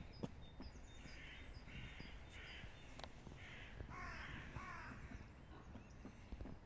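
A crow cawing faintly, about six harsh calls spread over a few seconds, with faint high bird chirps alongside.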